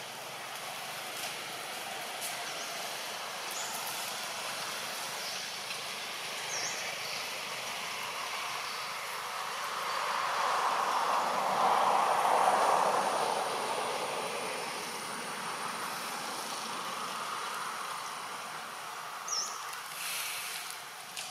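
Outdoor ambience: a steady rushing noise that swells louder for several seconds in the middle and then fades back, with a few faint short chirps.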